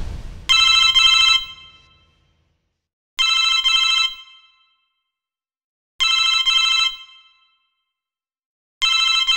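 Red corded telephone ringing: four double rings about three seconds apart. The dying tail of a boom fades out in the first moment.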